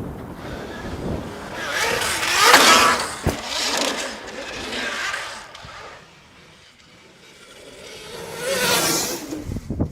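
Electric racing motorcycles passing by at speed, each one's motor whine and rush swelling and then falling away: a loud pass about two and a half seconds in, a smaller one soon after, and another near the end.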